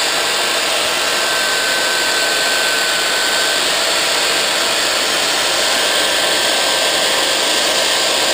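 Electric belt sander, mounted upside down, running steadily while a speckled alder stick is pressed against its moving belt and sanded to shape.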